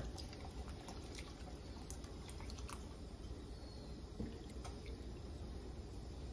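Coconut milk trickling in a thin stream from a can into a pot of beans and rice, with faint dripping and small ticks over a low steady hum.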